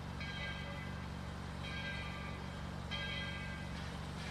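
Locomotive bell ringing steadily, about one strike every 1.3 seconds, each ring fading before the next, over a steady low rumble.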